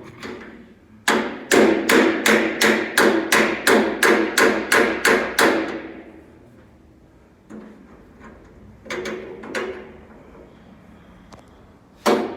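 Body hammer striking a steel door panel backed by a hand dolly, planishing out small dents: a quick run of about fifteen ringing blows, roughly three a second, then a pause with a few lighter knocks, and another quick run near the end.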